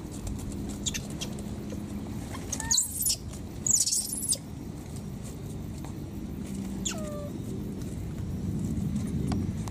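Baby monkey giving two short, loud, high-pitched squeals about three and four seconds in, and a fainter falling squeak near seven seconds, over a steady low hum.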